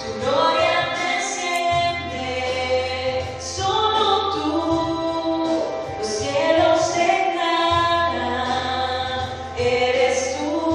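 A woman singing a song into a handheld microphone, amplified through stage PA speakers, over instrumental accompaniment with steady low bass notes.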